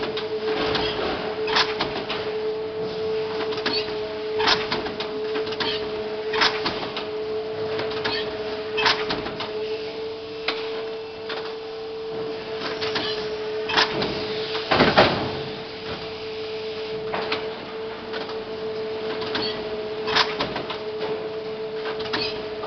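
fisher+rückle Cross Master veneer cross-splicing machine running: a steady hum with irregular clicks and knocks a second or two apart, and a louder clatter about two-thirds of the way through.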